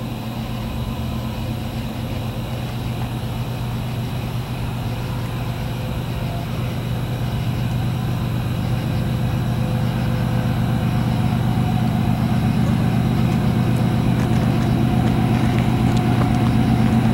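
Diesel locomotives of an approaching CSX freight train, a steady low engine drone that grows gradually louder as the train nears.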